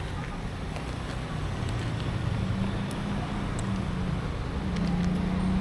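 Low, steady engine rumble of a nearby motor vehicle, with a humming tone that grows louder from about two seconds in. A few faint clicks sound over it.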